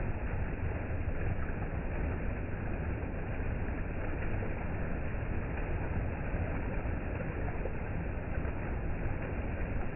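Steady, unbroken rushing of a mountain creek or waterfall, with no breaks or changes.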